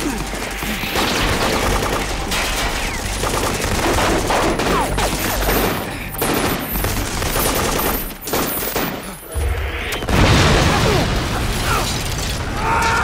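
Sustained automatic gunfire, with many shots overlapping in a dense, continuous volley. A loud low boom comes in about ten seconds in.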